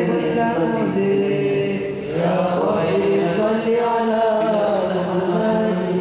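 Men's voices chanting selawat, devotional praise of the Prophet Muhammad, unaccompanied and through microphones, in long held, melismatic notes. One phrase ends and a new one begins about two seconds in.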